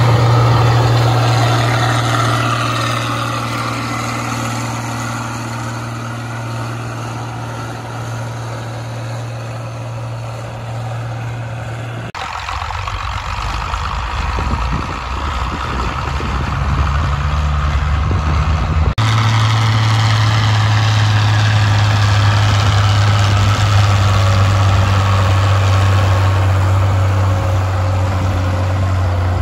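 Dutra D4K's Perkins 6.354 six-cylinder diesel engine running steadily under load, pulling a disc harrow through ploughed soil. It fades over the first ten seconds or so as the tractor draws away, then is louder again from about two-thirds of the way through.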